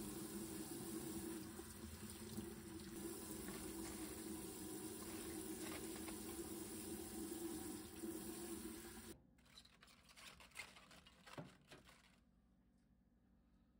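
Kitchen tap running steadily while wet cabbage leaves are handled in a pot's silicone steamer basket. The water cuts off abruptly about nine seconds in. A few faint rustles of cabbage leaves being pressed into the pot follow, then near silence.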